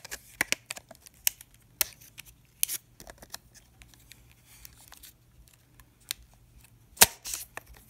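Irregular small clicks and taps of fingers and 35mm film leader working against the open back and take-up spool of a Minolta manual film camera while loading film, with one sharper click about seven seconds in.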